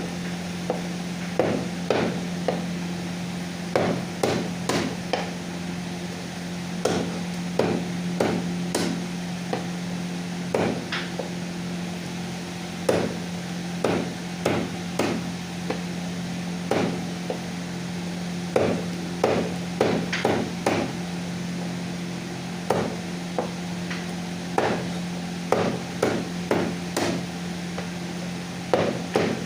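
Chicken being chopped with a cleaver on a wooden block: sharp chops come irregularly all the way through, often in quick runs of two or three. A steady low hum runs underneath.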